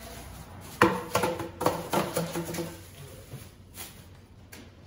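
A burst of clattering knocks with short ringing tones, starting sharply about a second in and lasting about two seconds, like hard objects being handled and set down.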